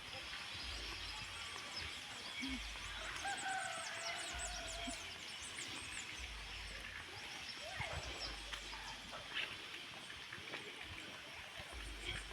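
A rooster crowing once, a drawn-out call about three seconds in, with small birds chirping in quick high notes around it. Gusts of wind rumble on the microphone.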